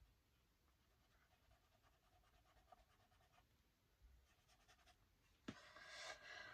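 Mostly near silence, with faint scratching of a paintbrush on paper. Near the end there is a click, then about a second of louder rustling.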